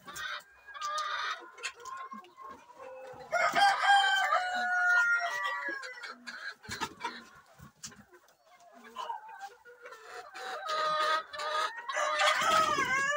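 Roosters crowing, two long crows, one starting about three seconds in and another in the last few seconds, with chickens clucking and calling between them.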